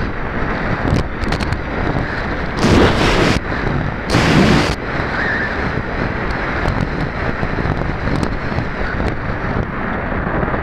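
Wind rushing over the onboard camera of a Pulsar 3.2 m glider in flight, with no motor tone, so it is gliding with the motor off. The rush is steady, with two louder gusts about three and four and a half seconds in.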